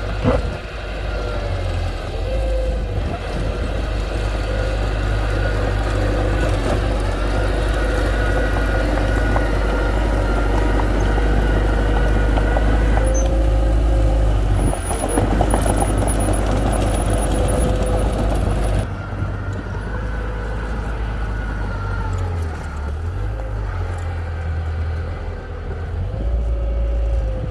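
Diesel engine of heavy earthmoving equipment running with a steady low rumble and a whine on top. There is a burst of clattering knocks about halfway through, and the sound drops in level about two-thirds of the way in.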